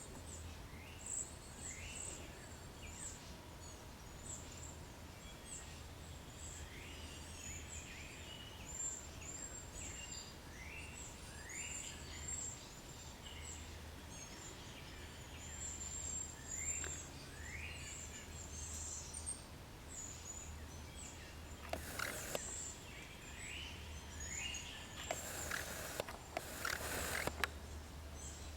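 Cedar waxwings giving high, thin calls over and over, mixed with frequent short down-slurred chirps from other birds, over a steady low hum. A few brief bursts of noise break in near the end.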